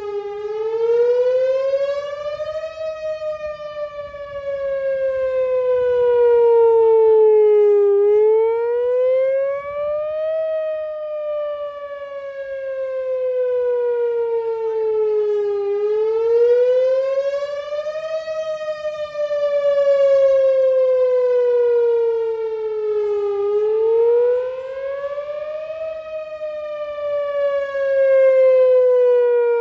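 Whelen Vortex R4 electronic outdoor warning siren sounding its wail signal during its scheduled monthly test. The tone rises for about two and a half seconds, then falls slowly for about five, in a cycle of roughly eight seconds that repeats about four times. The loudness swells and fades as the rotating speaker head turns.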